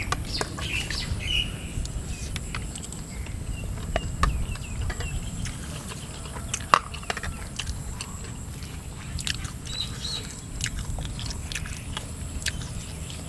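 Spoons clicking and scraping on plates as two people eat, with the loudest click about 6.7 seconds in. Birds chirp in the background, briefly near the start and again around ten seconds in.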